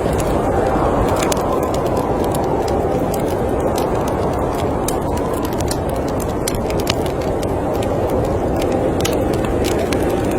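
Storm wind blowing steadily with slow swells, over a wood fire crackling and popping with frequent sharp snaps.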